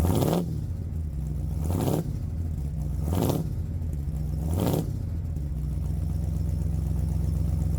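Ford F-150 engine blipped four times in quick succession, each rev rising and falling back, then settling into a steady idle. It holds its idle without losing fuel pressure now that the fuel pump driver module has been replaced.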